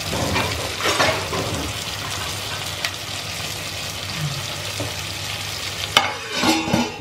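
Vegetables sizzling steadily in sesame oil in a clay pot, with a few sharp clicks. About six seconds in, a stainless steel lid is set on the pot with a clank and a brief metallic ring.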